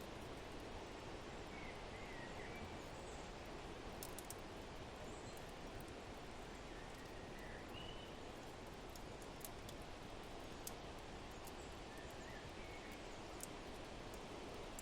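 Steady wind-like rushing with a few short bird chirps scattered through, and now and then a sharp crackle from a wood fire in a fireplace.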